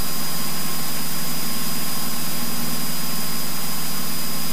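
Cessna 172N's piston engine and propeller droning steadily at climb power, heard inside the cabin under a constant rush of air noise, with a thin steady whine on top.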